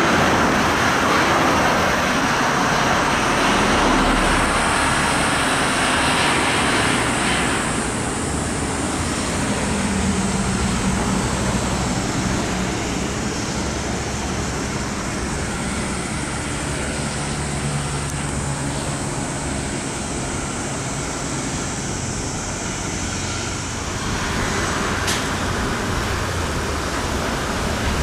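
Road traffic noise: a steady rush of passing vehicles, louder over the first several seconds and again near the end.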